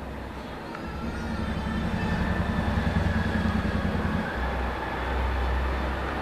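Low vehicle rumble that swells about a second in and changes character about four seconds in, with faint thin high squealing tones above it.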